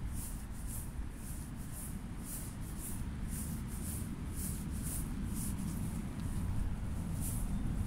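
Footsteps on a paved path at a walking pace, about two steps a second, over a low steady rumble of wind on the phone's microphone.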